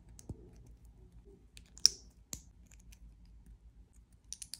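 Small plastic Lego pieces clicking and ticking as they are handled and pressed together, with one sharp click about two seconds in and a few light ticks near the end.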